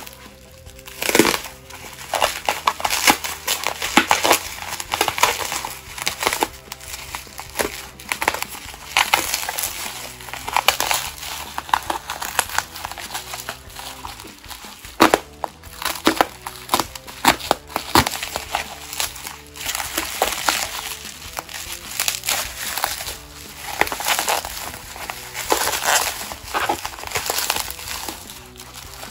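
Plastic bubble wrap crackling irregularly as hands grip, squeeze and pull it open, with sharp louder snaps now and then, the strongest about 15 and 18 seconds in.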